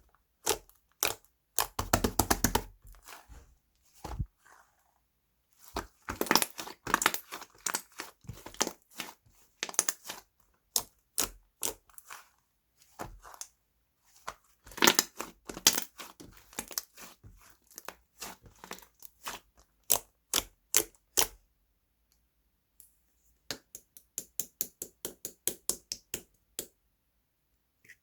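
Irregular sharp clicks and taps in clusters, with a quick, even run of taps, about four or five a second, near the end.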